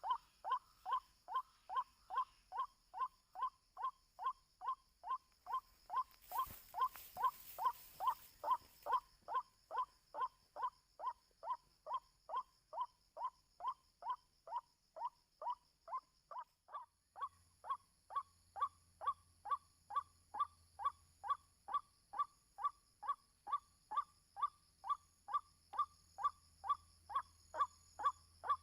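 White-breasted waterhen call: short, sharp 'kwak' notes repeated evenly, about two and a half a second, without a break. A brief rush of hiss joins in for a few seconds about six seconds in.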